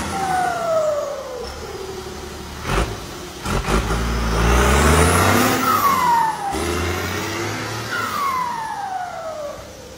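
A vehicle engine revs up, its pitch rising, then cuts off sharply about six and a half seconds in, with a few sharp clicks shortly before. Several loud whistle-like tones, each sliding downward over about a second, sound over and around it.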